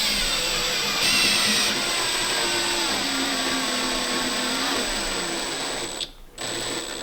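A small motor-driven machine running steadily with a hissing whine, cutting off suddenly about six seconds in.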